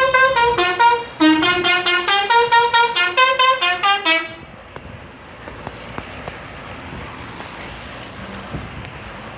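Telolet horn, a multi-trumpet musical vehicle horn, playing a fast tune of short notes stepping up and down. It stops about four seconds in, leaving a steady background rumble.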